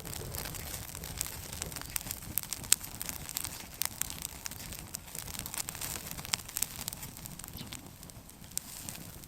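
Open wood fire crackling, with many irregular sharp pops and snaps over a low steady rumble of burning.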